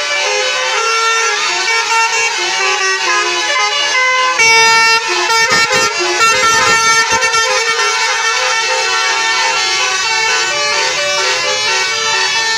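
Indonesian bus "telolet" horn: a set of multi-tone air horns playing a tune of held notes that step from pitch to pitch. About four and a half seconds in it gets louder, with a low rumble underneath for a few seconds.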